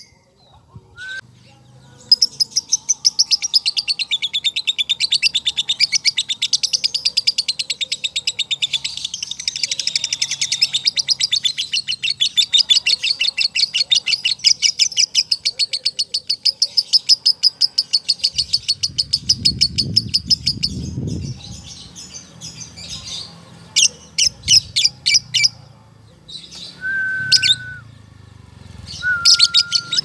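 Male Fischer's lovebird ngekek: a long, unbroken chatter of rapid high chirps with tight gaps, running about sixteen seconds before breaking into shorter bursts. Near the end there are two short steady whistles.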